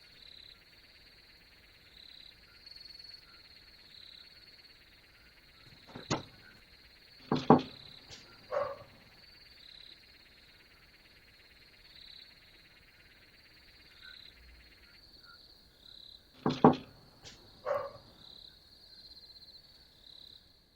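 Insects chirring steadily and high-pitched, picked up by a doorbell camera's microphone. A few short, sharp, louder sounds cut through: three about 6 to 9 seconds in and two more near the end.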